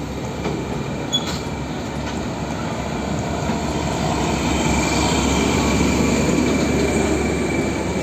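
Hino tanker truck's diesel engine running as the truck drives past, with steady engine and tyre noise that grows a little louder toward the middle and holds there, and a faint high whine over it.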